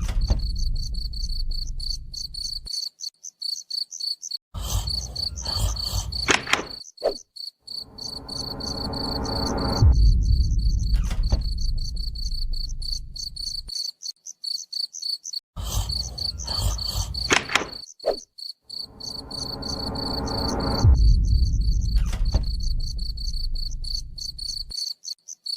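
Crickets chirping in a steady high trill, over a low rumble that swells and fades three times, about every eleven seconds, with short clusters of clicks between the swells.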